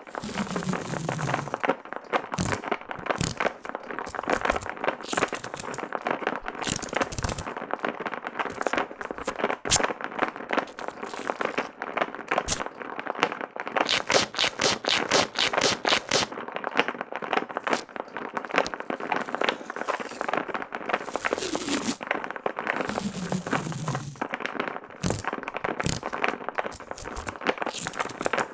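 Turntable stylus running over duct tape: dense crackling and scraping full of clicks, with a quick run of regular ticks about halfway through. A low tone slides down in pitch near the start and again about three quarters of the way in.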